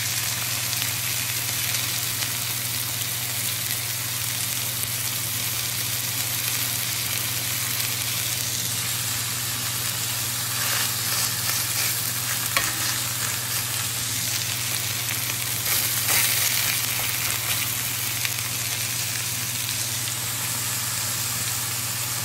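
Lamb shoulder blade chop sizzling steadily in hot tallow in a cast iron skillet, over a low steady hum. A single sharp click a little past halfway, as the tongs touch the meat and pan.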